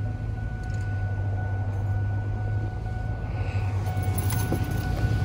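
Vehicle engine idling steadily: a low hum with a faint, even whine over it.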